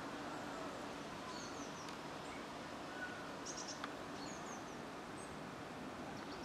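Faint steady low hum of a Class 375 electric multiple unit creeping slowly into the station. Small birds chirp briefly a few times.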